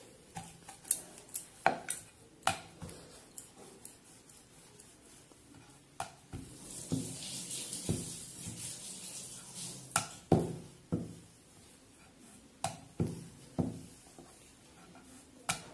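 Wooden rolling pin rolling out a stuffed kochuri on a round rolling board: a string of sharp clicks and knocks as the pin lands and rocks on the board, with a longer scraping stretch near the middle.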